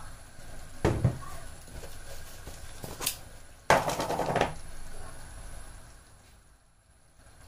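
Kitchen cookware being handled: a couple of knocks about a second in, a light click, then a louder clatter lasting under a second around the middle.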